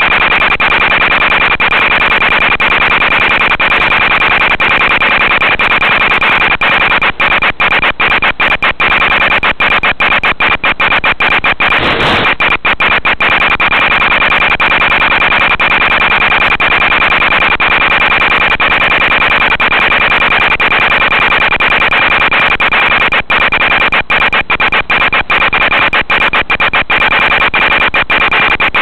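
Loud steady static hiss with a thin high whine running through it, from the audio channel of an analog FPV video link carrying no sound of its own. It is broken by many brief dropouts, with a short surge about twelve seconds in, as the radio signal fades in and out.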